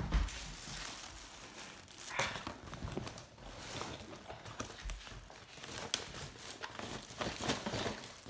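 Plastic packaging crinkling and rustling as a parcel is unpacked, in irregular handling noises with a few light knocks.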